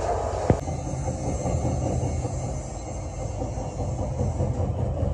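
Steady mechanical rumble of workshop machinery running, with one sharp click about half a second in.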